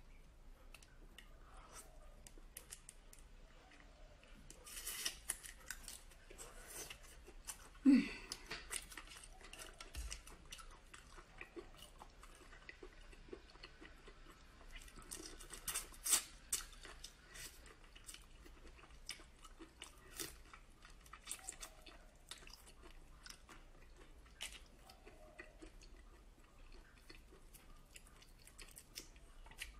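Raw black tiger prawns being peeled by hand, their shells crackling and clicking wetly, with close-up chewing of the raw meat. A brief louder low sound about eight seconds in.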